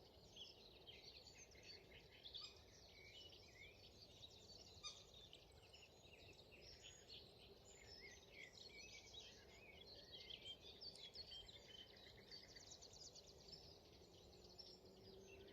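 Faint mixed bird song from several songbirds singing at once, with a nightingale's song among them, including bouts of rapidly repeated notes. A steady low background rumble lies underneath.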